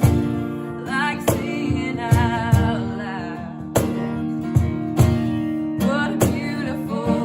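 A woman singing a country-folk song over acoustic guitar, with drum hits about once a second.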